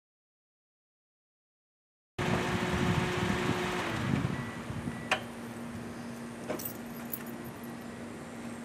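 Silence for about two seconds, then outdoor ambience with a steady low hum. A few light jingles of a set of keys come after about five seconds.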